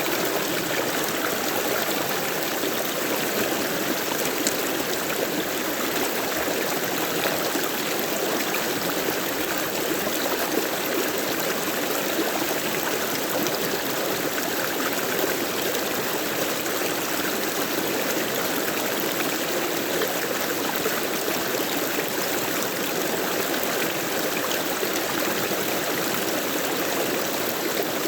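Flowing water of a stream, a steady, even rush with fine trickling.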